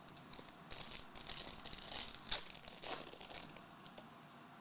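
A trading-card pack wrapper crinkling as it is torn open and handled, starting about a second in and lasting a couple of seconds.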